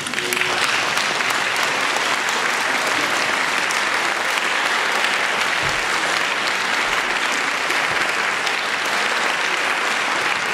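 A large audience clapping, starting all at once and holding steady.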